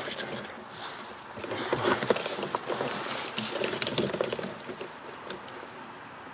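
Rustling and small crackles of dry leaves and twigs as a person in a ghillie suit crawls forward through leaf litter with a rifle, louder through the middle and quieter near the end.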